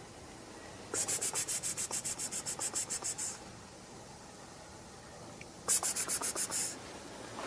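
A long-haired cat licking with its rough tongue after a meal: two runs of quick rasping strokes, about eight a second, the first lasting about two seconds and the second shorter, near the end.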